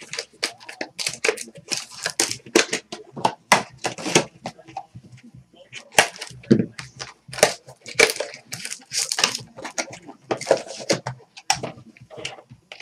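Plastic wrappers of 2012 Absolute football trading-card packs crinkling and crackling as they are torn open and the cards handled, a dense run of irregular sharp crackles with a brief lull about five seconds in.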